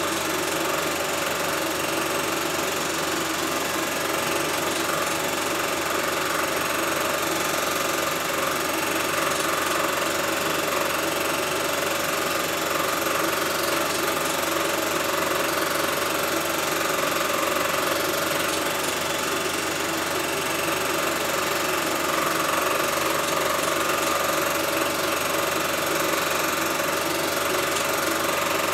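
Home-movie film projector running, a steady mechanical whir and rattle of the film transport that does not change.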